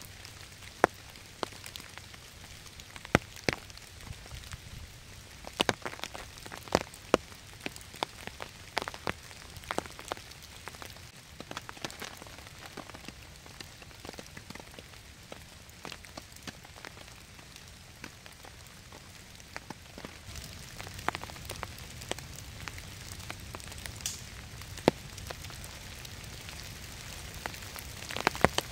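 Rain falling on a tarp shelter: a steady hiss of rain with sharp, irregular ticks of single drops striking the fabric.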